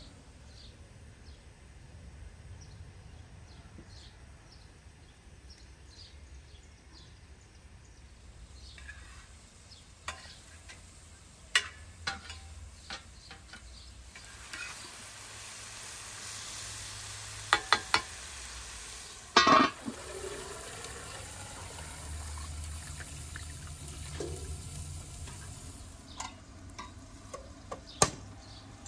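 Food frying and being stirred in a metal pan over a wood fire, a steady sizzle through the middle part, with scattered clinks and knocks of utensils and one loud metal clank. Birds chirp during the first several seconds.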